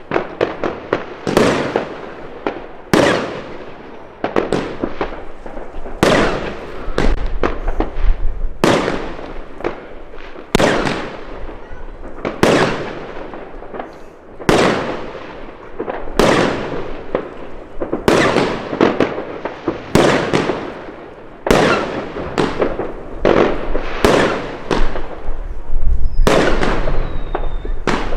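Consumer firework cake, a Pangu 'Brazilian box' set fused as one chain, firing shot after shot at roughly one to two a second. Each shot is a sharp bang followed by a fading tail as the shell bursts overhead.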